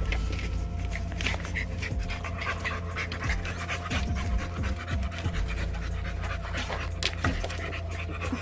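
American Bully puppy panting rapidly and steadily, over a steady low hum.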